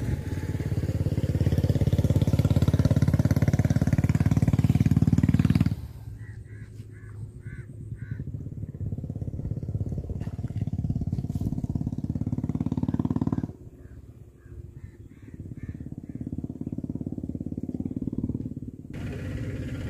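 A small engine running, loud with a steady low pulsing for about six seconds, then fainter; it swells again and drops off about thirteen and a half seconds in, returning faintly near the end.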